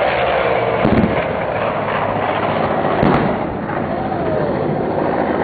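Steady aircraft roar with two loud thumps, about a second in and again about three seconds in, like ground pyrotechnic blasts in an air show demonstration.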